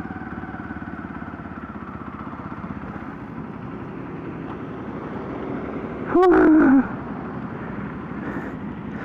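A 2007 Honda CBR125's single-cylinder engine running steadily, its pitch easing slightly lower over the first few seconds. A little past halfway there is a short, loud burst of the rider's voice.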